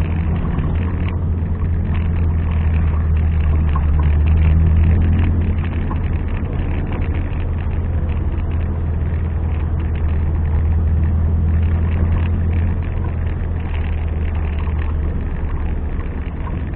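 Off-road 4x4's engine running with a steady low drone, a little louder about four to five seconds in.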